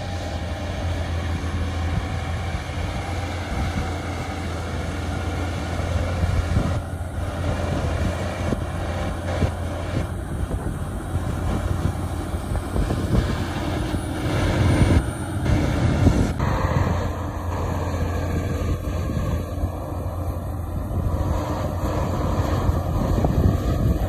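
Shantui DH17 C2 crawler bulldozer's diesel engine running steadily with a low drone as the dozer pushes a load of earth and stone. The sound changes abruptly about sixteen seconds in.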